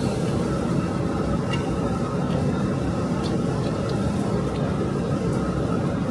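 Steady low roar of commercial kitchen equipment, with a few faint clicks now and then.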